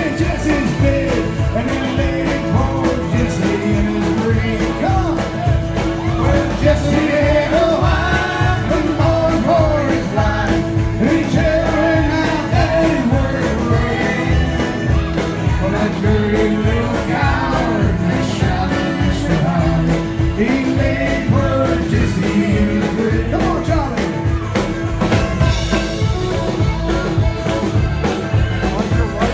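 Live folk band playing an up-tempo country-style song with a lead vocal over a steady beat.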